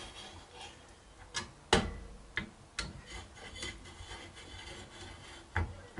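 Clicks and light knocks of an AMD Wraith Spire cooler's spring-loaded mounting screws being tightened down onto a motherboard's backing plate, with faint rubbing of hands on the parts. A handful of sharp clicks come at uneven intervals, the loudest a little under two seconds in.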